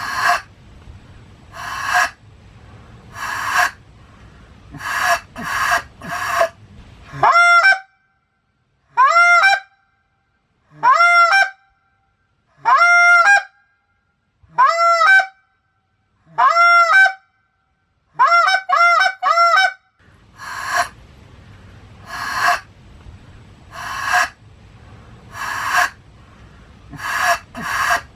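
Goose call blowing the honk: a series of short honks, each bending up in pitch as it breaks. In the middle stretch the honks are clean and come about every two seconds, ending in a quick run of four. At the start and near the end they sound over a steady background hiss.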